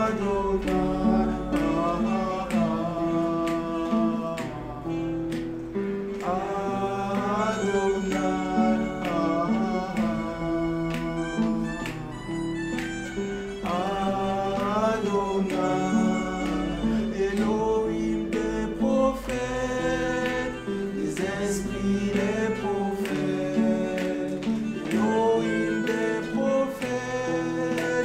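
A Christian hymn sung over guitar accompaniment, the melody moving over a steady bass line.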